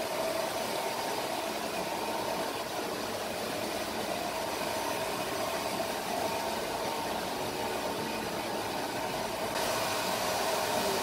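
A hair dryer's motor and fan running steadily, with a faint whine over the rushing air, getting a little louder and hissier near the end.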